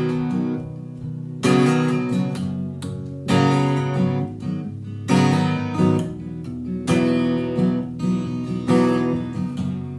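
Instrumental break of a song: acoustic guitar strumming chords over a steady bass line, with a strong strum about every two seconds and no singing.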